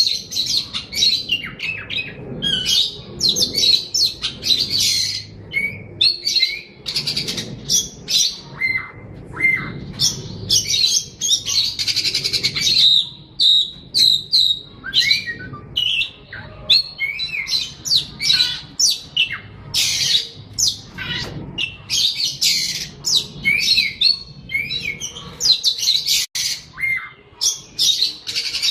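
A songbird singing continuously: a fast, varied stream of short chirps, whistled glides and harsher squawking notes with hardly a pause.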